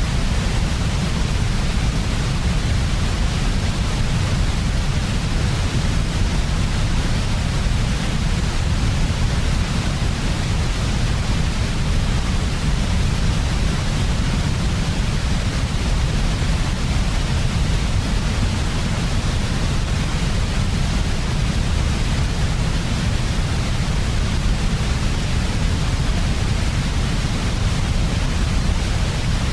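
Continuous white-noise sleep sound: an even, unchanging hiss with a heavier low rumble beneath it and no variation in level.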